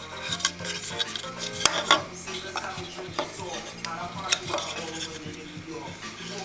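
Small vintage plastic dolls house toilet being handled: its hinged seat and lid clicking, and the piece tapping against a hard tabletop, in a series of light clicks and knocks with a sharp pair about two seconds in.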